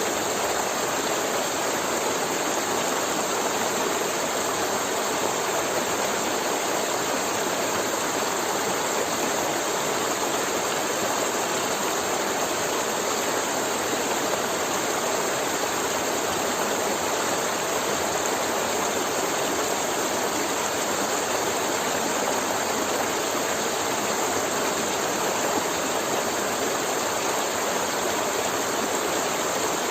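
River water flowing, a steady, unchanging rush of water.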